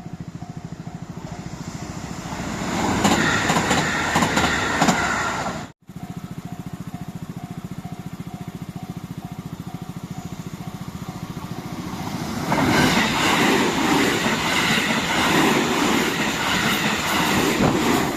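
Japanese level-crossing warning bell ringing over and over, about two strokes a second, while JR Kobe Line trains pass close by with wheel clatter. One train passes in the first few seconds and stops abruptly at an edit cut; after the bell rings alone for a while, a second train passes through to the end.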